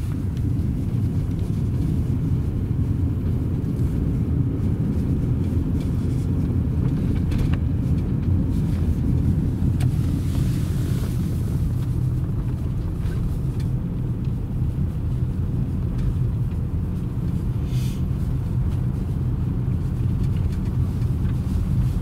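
Car cabin noise while driving: a steady low rumble of the engine and tyres on a worn asphalt road, with a brief hiss about ten seconds in.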